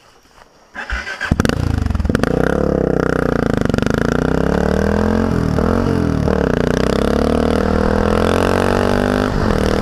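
Honda XR650L single-cylinder engine riding under load, coming in loud about a second in. Its pitch falls and climbs, dips briefly twice in the middle, then holds fairly steady.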